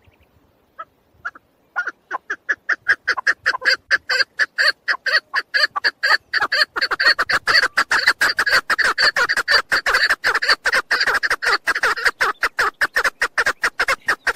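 Female chukar partridge call: short clucking notes, a few scattered ones at first, then quickening into a fast steady run of about four to five notes a second.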